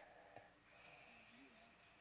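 Near silence between snoring breaths of a sleeper: the end of a loud snoring breath cuts off at the very start, followed by a faint breath and a small click.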